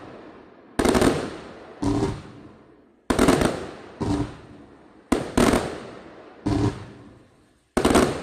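Pyroally 100-shot fireworks cake firing its shots: eight sharp bangs, about one a second with two in quick succession near the middle, each fading away over about a second.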